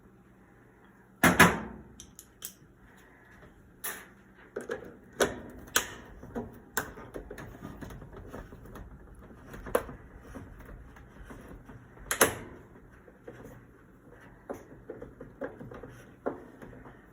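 Irregular clicks and knocks of hand tools, a socket wrench among them, working the screws on a washing machine's metal cabinet panel, with two sharper knocks about a second in and near twelve seconds.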